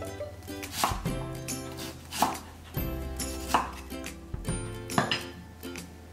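Santoku chef's knife chopping an onion on a wooden cutting board, the blade knocking the board about once a second, over soft background music.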